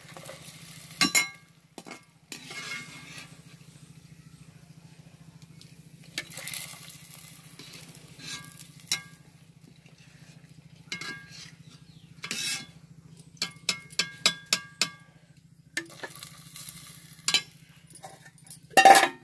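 Steel slotted spoon knocking and clinking on the rim of an aluminium pot as fried pakoras are tipped into warm water, including a quick run of about a dozen taps about two-thirds of the way through and a loud knock near the end. Between the knocks come spells of hot-oil frying sizzle.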